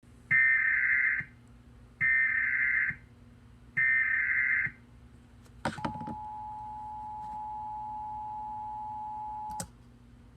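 Emergency Alert System tones: three one-second bursts of the buzzing SAME data header, then a few clicks and the steady two-tone attention signal, held for about four seconds and cut off with a click.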